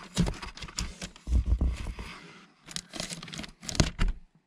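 Irregular scraping, rustling and bumping on cardboard inside a cardboard box, with heavier thumps about a second and a half in and again near the end.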